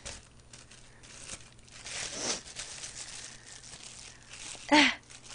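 Crinkling and rustling of food packaging being handled as eating begins, with scattered small clicks. A short vocal sound from the eater comes near the end.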